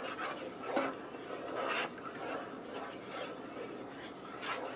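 Wooden spoon stirring a thick tomato and beef soup, dragging and scraping softly against the pot in a few slow swishes.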